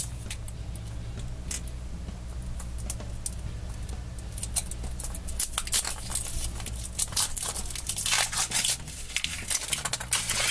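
Printed foil wrapper being peeled and crumpled off a chocolate surprise egg: a run of crinkling, crackling rustles that get busier in the second half.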